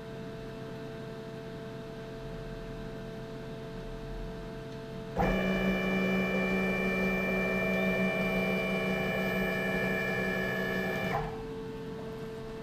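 Metal lathe running with a steady hum. From about five seconds in to about eleven, a louder whine made of several steady tones takes over, then drops back to the hum.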